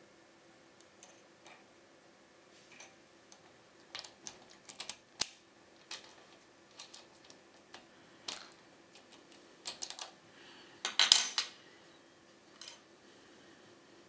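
Dimple key sliding into and out of a Dom IX-6 KG lock cylinder: a string of irregular sharp metallic clicks and scrapes as the spring-loaded pins ride over the key's dimples, the loudest cluster about eleven seconds in.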